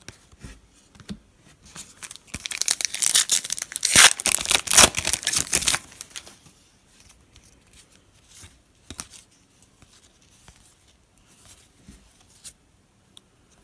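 Foil wrapper of a trading-card pack (2017 Donruss football) being torn open and crinkled, loudest from about two to six seconds in, then faint handling of the cards.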